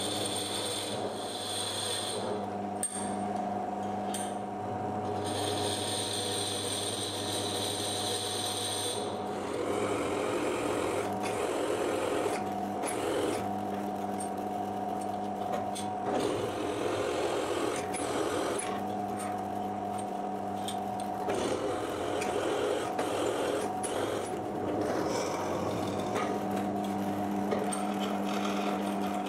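Bench drill press motor running steadily while the bit cuts into a metal workpiece held in a vise. A high-pitched squeal from the cutting comes and goes in the first several seconds, and rougher cutting noise follows.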